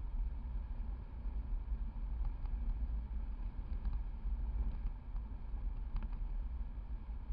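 Steady low rumble of a car rolling along a paved road on Michelin Primacy MXM4 tyres: tyre and wind noise heard close to the front wheel, with a few faint ticks about two, four and six seconds in.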